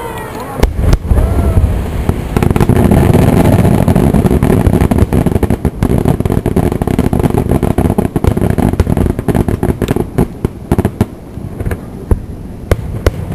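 Fireworks exploding in rapid succession: many sharp bangs and crackles over a heavy continuous rumble, busiest through the middle and thinning out near the end.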